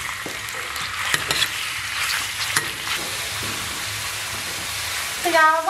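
Pork belly frying in lard in a large iron wok, sizzling steadily, with a metal ladle scraping and clinking against the wok now and then as it is stirred.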